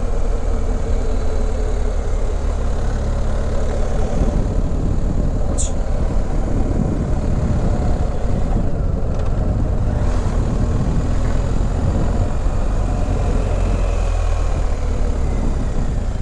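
BMW R 1250 GS Adventure's boxer-twin engine running under way, mixed with a steady low rush of wind noise; the engine note changes about four seconds in.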